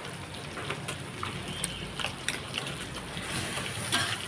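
Stir-frying: water spinach sizzling in a wok, with a metal spatula scraping and clinking against the pan several times, the loudest clink near the end.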